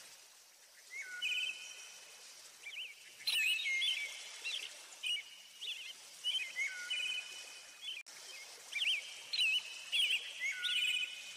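Small birds chirping, with short high whistled phrases and quick trills repeated again and again. A single sharp click comes about three seconds in.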